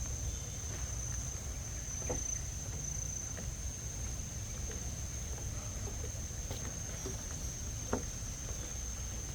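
Steady high-pitched insect drone over a constant low rumble, with a couple of faint knocks about two and eight seconds in.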